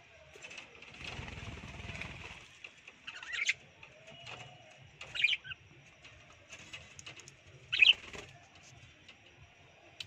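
Budgerigars giving short, loud, sharp chirps, three of them a couple of seconds apart, with a brief flutter of wings about a second in.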